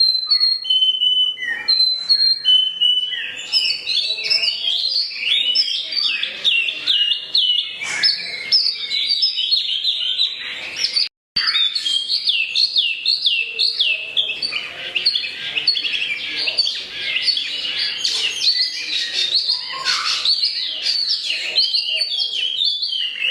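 Wambi mini songbird singing a fast, continuous, varied song of chirps and trills packed with canary-like phrases, broken by a brief dropout about eleven seconds in.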